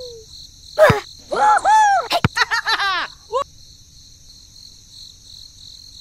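Steady high chirring of crickets throughout. Between about one and three and a half seconds in, a quick run of short squeaky calls sounds over it, each bending up and down in pitch.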